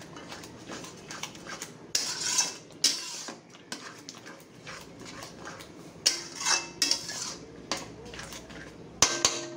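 Metal spatula stirring a thick masala gravy in a metal kadai, scraping and clinking against the pan's sides and bottom in an irregular rhythm, with sharper knocks about two, three, six and nine seconds in.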